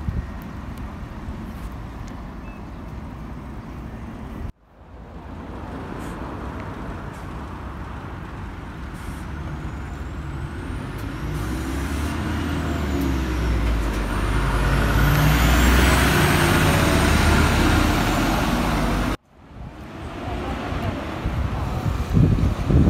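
Diesel buses passing in street traffic, the sound breaking off abruptly twice. In the middle stretch a bus engine builds up loud and close over several seconds, with a faint high whine rising in pitch.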